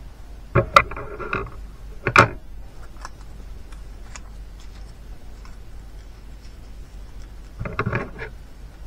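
Small pieces of card being handled and folded by hand: short clicks and paper rustles about half a second in and again around two seconds, faint ticks between, and another cluster of rustles near the end.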